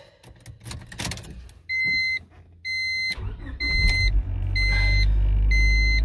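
2000 Honda Civic's four-cylinder engine started on the new ignition switch: after a few clicks, the starter cranks for about a second and the engine catches and settles into a steady idle. An electronic beep sounds about once a second throughout.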